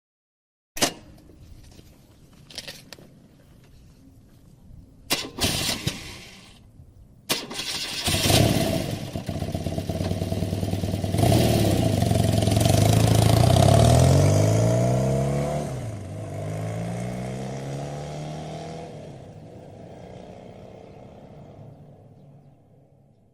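Motorcycle start-up: a few sharp mechanical clicks and knocks, then the engine catches about eight seconds in and runs loudly. Its pitch then drops and the sound fades away as the bike pulls off.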